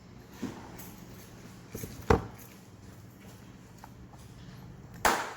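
Plastic casing of a MacBook Air power adapter being forced apart with pliers: a few sharp cracks and clicks, the loudest about two seconds in and another strong one near the end.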